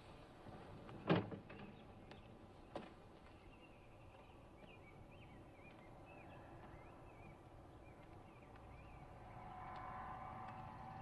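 A car door shut with a single sharp slam about a second in, followed by a lighter knock, over faint intermittent chirping; faint sustained tones swell near the end.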